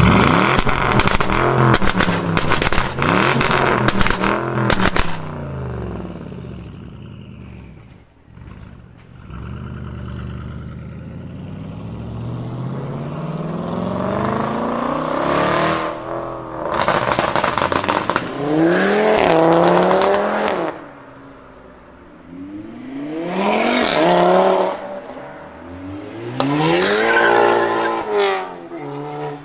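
Audi RS6 Avant's twin-turbo V8 revved, with a quick run of sharp exhaust pops and crackles over the first few seconds, then running quieter at low revs. From about the middle on it is blipped up and back down several times. In the last few seconds a Volkswagen Golf is revved.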